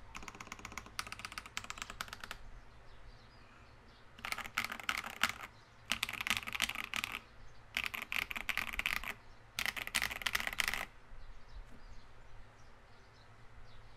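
Typing on an IKKI68 Aurora R2 custom mechanical keyboard with lubed Green Jacket tactile switches, an aluminum plate and PBT keycaps: a quick run of keystrokes, a pause of about two seconds, then four bursts of fast typing of a little over a second each, stopping about eleven seconds in.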